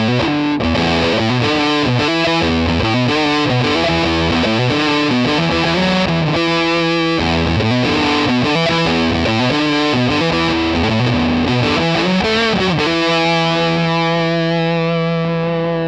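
Vintage VS6 SG-style electric guitar with Wilkinson humbuckers, played through a 1990s Electro-Harmonix Big Muff Pi fuzz pedal into a miked Fender Hot Rod Deluxe amp. It plays a fuzzed-out riff of changing notes and chords, then lets one chord ring out over the last few seconds.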